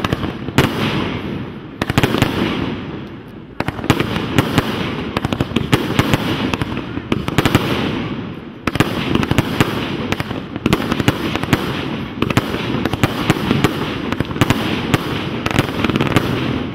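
Rubro 'Killer Instinct' fireworks cake firing its shells, bursting into a dense, continuous crackle. Brief lulls are broken by fresh volleys about 4 and 9 seconds in.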